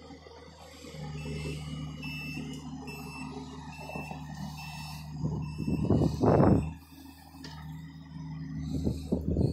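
John Deere excavator's diesel engine running steadily while its travel alarm sounds a repeating high beep. About six seconds in there is a loud burst of noise, with a smaller one near the end.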